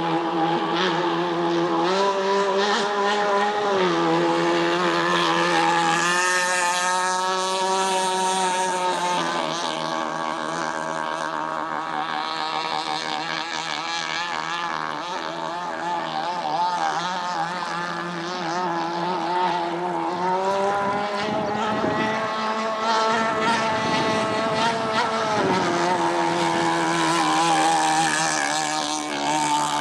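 Gas-powered RC cigarette boat's small two-stroke engine running continuously, its pitch rising and falling as the throttle is worked: higher from about six to nine seconds in, and surging again for a few seconds around the twenty-second mark.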